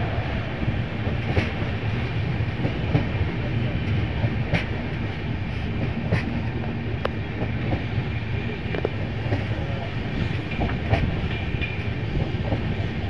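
A passenger train running at speed, heard from an open coach window: a steady rumble of wheels and rushing air, with sharp clicks every second or two as the wheels pass over the track.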